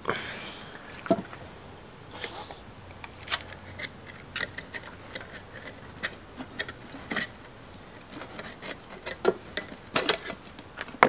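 Metal stain cans and tools being handled on a wooden workbench: irregular sharp clicks, taps and a few knocks, about a dozen in all.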